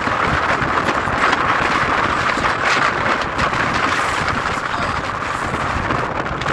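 Storm-force wind of around 65 mph buffeting the microphone: a loud, steady rush of noise with no letup.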